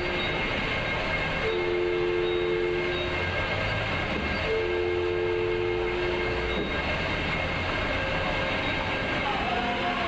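A two-tone horn sounding long blasts, one just ending at the start and two more about three seconds apart, the last stopping about six and a half seconds in, over steady heavy machinery noise.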